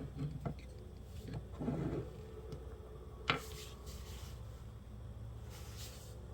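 Small handling knocks and rustles from parts being worked on by hand, with one sharp click about three seconds in.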